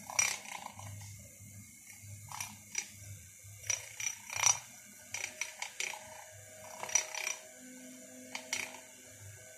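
A metal spoon knocking and scraping against a glass at irregular intervals as instant coffee, sugar and water are beaten by hand into dalgona foam.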